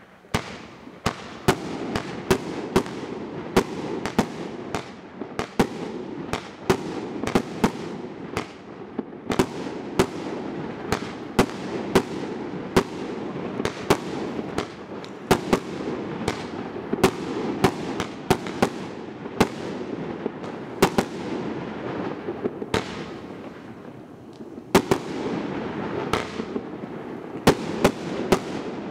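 A 100-shot 30 mm consumer fireworks cake (Evolution Fireworks Rambam 3.0) firing a continuous barrage: loud bangs of shells launching and bursting about two a second, over a steady crackle of glittering stars. The firing eases briefly about three quarters of the way through, then picks up again.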